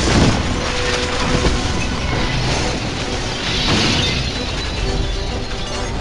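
A dramatic film soundtrack: music under a dense rush of crashing, shattering debris, with a hissing swell about three and a half seconds in.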